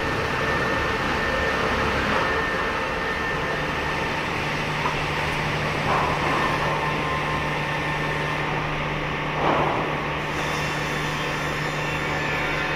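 Sawmill primary sawing line running: twin-shaft circular saws cutting logs, a steady machine drone with a low hum, swelling briefly about six and nine and a half seconds in.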